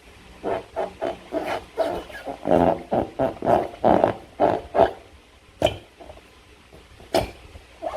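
Slime being squeezed and worked by hand, a quick run of short, wet, squeaky squelches. Then come two sharp clicks about a second and a half apart.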